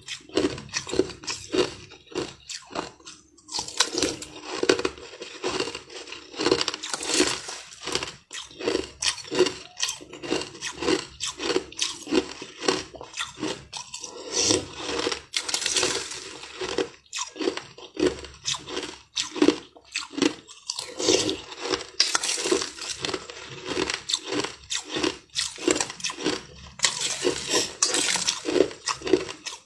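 Chunks of sweet coloured ice crunched and chewed close to the microphone, in quick, irregular crunches that run on without a break.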